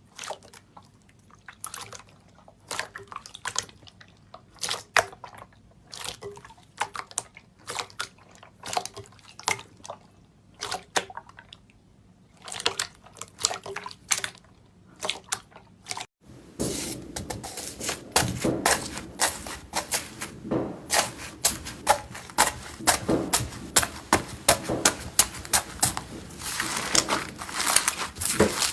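Slime being squeezed and poked by hand, giving sharp wet pops and clicks about twice a second. About 16 seconds in, the sound changes abruptly to a dense run of crackling and crunching.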